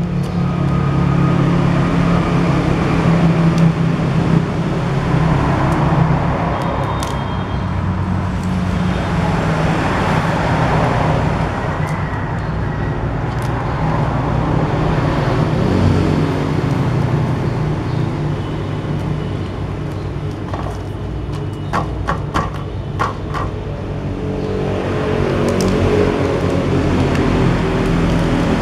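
Steady rumble of road traffic with a low engine hum, swelling and fading several times as vehicles pass. A quick run of sharp clicks comes about three-quarters of the way through.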